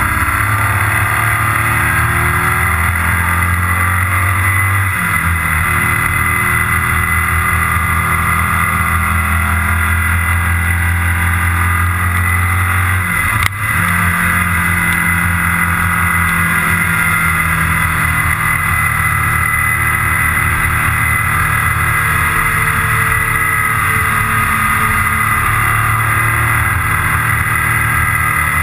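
Onboard sound of a motorcycle riding at road speed: steady engine running under a constant rush of wind and road noise. The engine note shifts about five seconds in, and again about halfway through with a brief dip and click.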